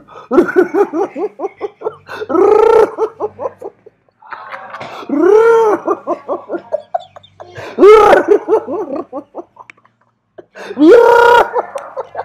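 A person laughing loudly: five big rising-and-falling peals about every three seconds, with quick ha-ha pulses between them.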